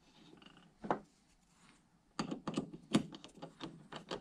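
Metal hand tools clicking and tapping on a steel bearing housing as a threaded insert is driven into its hole with the insertion tool: one knock about a second in, then a run of irregular clicks.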